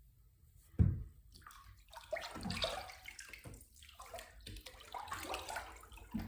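Water sloshing and splashing in a bathtub in irregular bursts, with a single dull thump about a second in.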